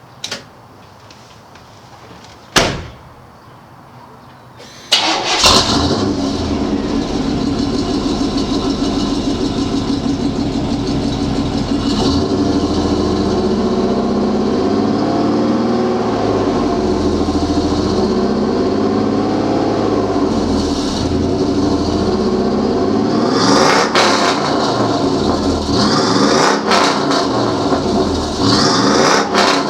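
Two sharp clicks, then about five seconds in a 1999 Chevy Tahoe's Vortec 5.7 L (350) V8 starts and settles into a steady idle through catless downpipes, a single 3-inch pipe and a Flowmaster Super 44 muffler. Near the end it is revved briefly a few times.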